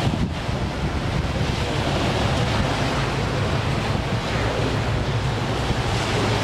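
Wind buffeting the microphone over the steady wash of open water, with a constant low hum underneath.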